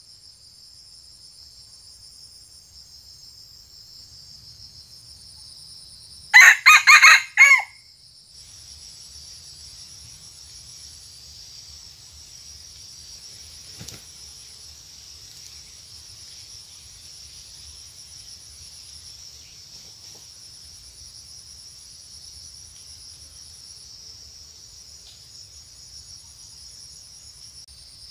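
A red junglefowl rooster crows once about six seconds in: a short crow broken into several pieces, the stuttering crow the decoy was chosen for. A steady, high insect drone runs under it.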